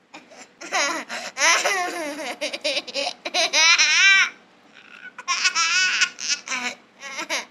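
A young boy laughing loudly in quick, high-pitched runs of giggles, with a short pause a little past the middle.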